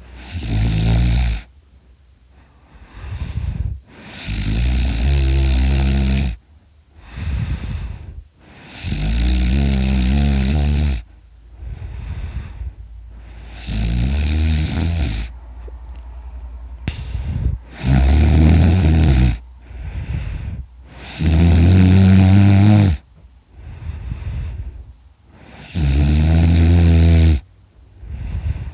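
A man snoring very loud in his sleep: seven long snores about four seconds apart, with softer snores between them.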